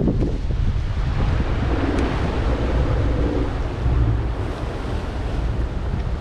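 Wind buffeting the microphone, over the steady wash of sea surf against rocks.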